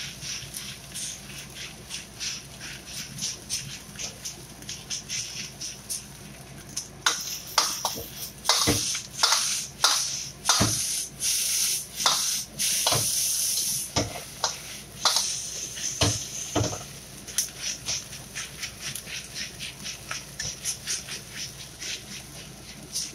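Metal ladle scraping and knocking against a stainless steel wok while stir-frying egg fried rice, a couple of strokes a second. From about a third of the way in to just past the middle, the strokes come faster and louder with a sizzling hiss.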